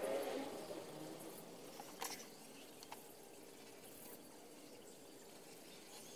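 Craft knife scratching as it cuts a paper stencil on a cutting mat, starting with a short squeaky scrape, then quiet scraping with a couple of small clicks.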